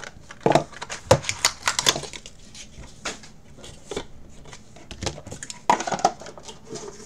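A cardboard trading-card box being opened and its packaging handled: irregular bursts of crinkling plastic wrap and cardboard clicks, busiest in the first two seconds and again about five to six seconds in.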